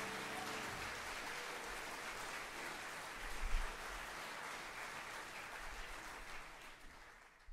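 Audience applauding, with the band's last held chord dying away in the first second. The applause fades gradually, with a single low thump about halfway through.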